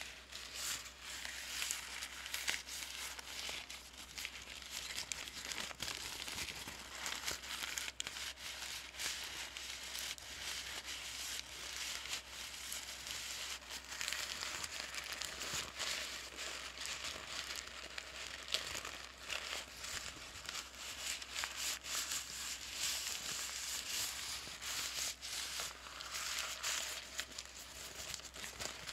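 Paper bag being crinkled and crumpled without a break: a dense, continuous crinkling full of small sharp crackles.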